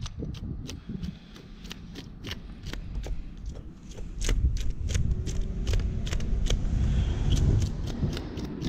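Spoon scraping the scales off a common carp: a quick run of short, sharp scrapes and clicks, about three a second.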